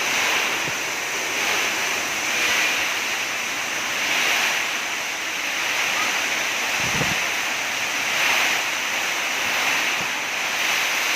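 Heavy storm rain and very strong wind, a steady rushing that swells and eases in gusts every couple of seconds, with a brief low thump about seven seconds in.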